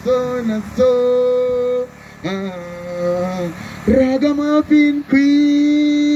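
Singing voice holding long, steady notes in a slow melody, with short breaks between the phrases.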